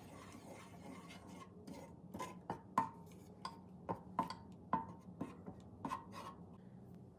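Wooden spoon stirring thick sauce in an electric skillet, knocking against the pan in a quick run of short clicks, about two or three a second, from about two seconds in, over a faint steady hum.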